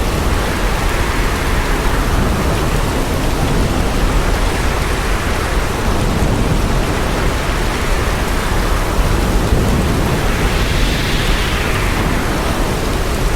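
Hurricane wind and driving rain, a dense steady roar with a deep rumble underneath, swelling and easing in gusts, strongest a little before the end.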